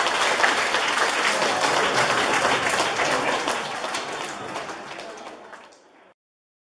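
Audience applauding, a dense patter of many hands clapping that fades over the last couple of seconds and cuts off suddenly about six seconds in.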